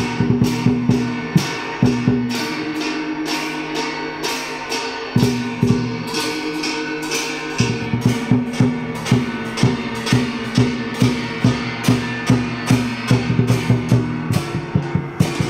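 Vietnamese drum-and-gong (trống chiêng) ensemble playing: sharp drum strokes in a steady beat over the ringing of tuned gongs. The deep drum strokes drop out for a few seconds in the middle, then come back.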